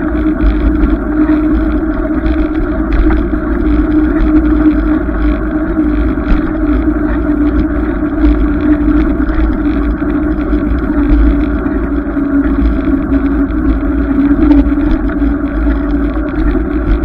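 Riding noise from a bicycle-mounted camera: wind rumbling on the microphone, with a steady humming drone held at one pitch.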